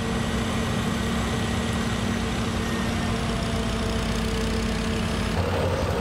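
Single-engine turboprop plane's engine running steadily at low power, a loud hum with a steady whine over it. Near the end the sound turns to a deeper rumble without the whine, as heard inside the cockpit.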